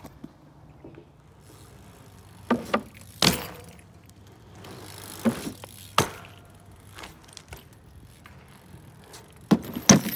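Bicycle tyres rolling on asphalt and striking a plywood kicker ramp: a scattering of sharp knocks and clunks as the wheels hit the wood and the bike lands, the loudest pair near the end.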